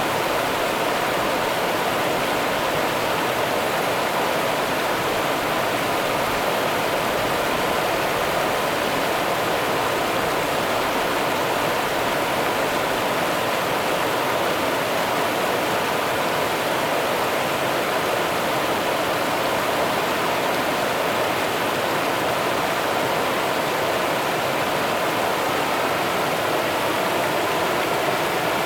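Rio Grande river water running and rushing steadily, a continuous even rush.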